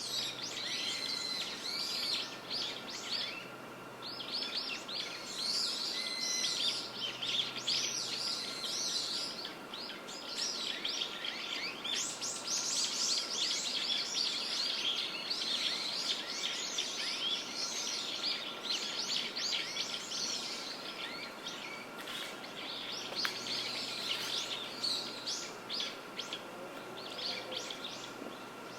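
Woodland ambience: many small birds chirping and calling in dense, overlapping bursts over a steady background hiss, with a faint steady high tone underneath.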